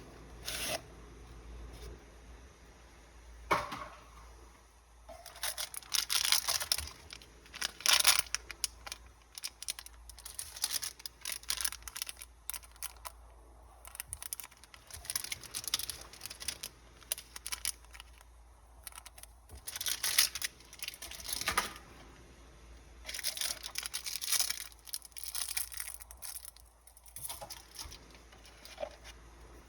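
Packaging from a Pokémon trading card Elite Trainer Box being handled, torn and crinkled: irregular bursts of rustling and tearing every few seconds, with a few sharp clicks.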